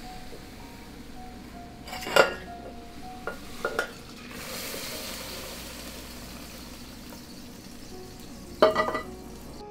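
A frying pan of boiling water clanks on the gas burner grate about two seconds in as it is lifted. The water is then poured into a stainless steel measuring jug with a steady hissing splash, and there is another metal clank near the end.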